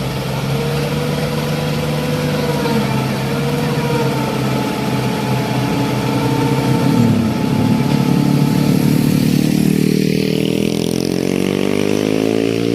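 Vehicle engine running steadily at one pitch, then revving up with a rising pitch over the last few seconds.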